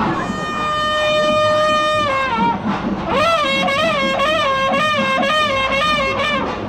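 Reed wind instrument playing over crowd noise: one long held note that slides down about two seconds in, then, after a short break, a wavering, ornamented melodic phrase.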